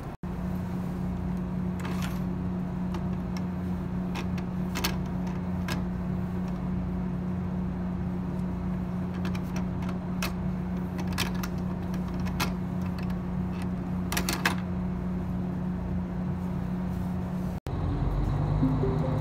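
Steady drone of a diesel railcar's engine heard inside the passenger cabin, with scattered light clicks and knocks as a hand handles the metal ashtray fitted to a seat back. The drone cuts off abruptly near the end.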